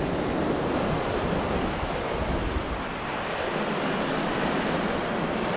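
Sea surf washing steadily onto a sandy beach, heard as an even rushing hiss, with wind rumbling on the microphone.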